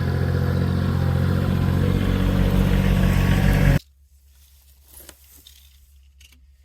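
An engine running steadily at a constant speed, then shut off abruptly about four seconds in.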